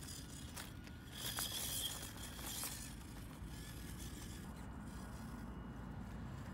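Small RC crawler truck driving over loose rock, with stones clicking and scraping under its tyres and a brief louder stretch about a second in.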